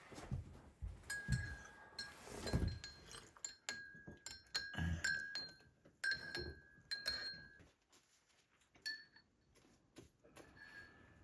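Tableware clinking: a quick, irregular run of small ringing taps, like utensils knocking on dishes, for several seconds, then two more taps near the end. A dull thud comes among the first taps.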